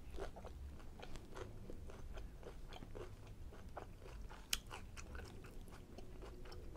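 Close-up chewing of a chicken fajita: soft, irregular wet mouth clicks and smacks, with one sharper click a little past the middle.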